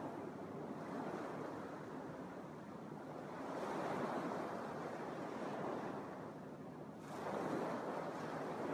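Small Lake Michigan waves breaking and washing up a sandy beach, a steady wash that swells twice, about halfway through and again near the end.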